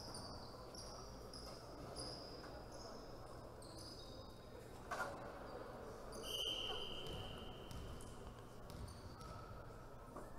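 Faint sports-hall ambience of a volleyball match: short high squeaks, typical of sneakers on the court floor, come every half second or so, with one longer squeak about six seconds in. A single ball bounce lands about five seconds in.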